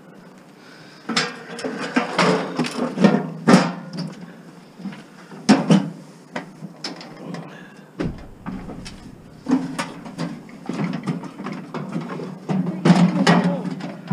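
Scrap items being shifted and pushed into a vehicle's cargo area: a run of knocks, bangs and scraping that starts about a second in, with the loudest bangs near four seconds, six seconds and towards the end.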